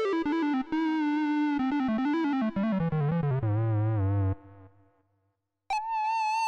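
Nord Wave 2 synthesizer playing a single-voice lead patch: a fast run of notes that steps downward to a low note, which cuts off about four seconds in. After a second or so of silence, a new high note starts and is held with a slight waver.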